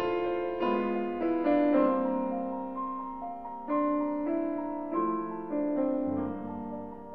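Slow piano music: single notes and chords struck and left to ring and fade.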